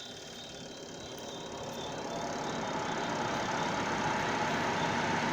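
Newly replaced spin-dryer motor of a washing machine starting up and spinning the dryer drum, a steady whir growing louder as it picks up speed.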